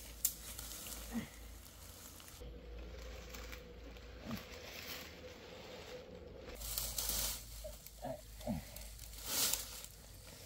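Rustling and crackling of ferns and dry leaf litter as a person crawls and shifts through forest undergrowth, with sharper crackles near the end.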